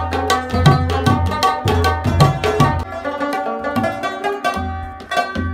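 Tabla and rubab played together: fast hand strokes on the tabla with deep booming bass-drum strokes, under a plucked-string melody. The deep bass strokes fall away for about two seconds in the middle and come back near the end.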